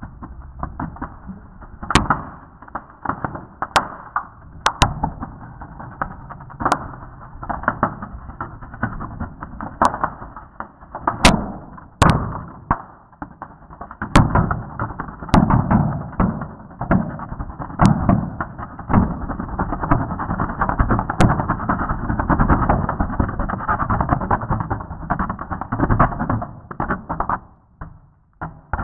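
PC mainboard burning from 230 V AC fed into its 12 V connector, played back slowed down: continuous dull crackling and fizzing with about a dozen sharp pops as components blow. The crackle is thickest in the second half, as sparks shower from the board, and dies away near the end.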